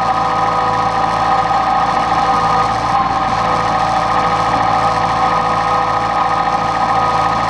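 Diesel engine of a John Deere 110 backhoe running steadily, with a steady high hum over the engine noise.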